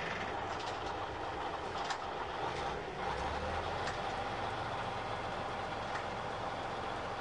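A heavy diesel engine idling steadily, with a few faint clicks and knocks over it.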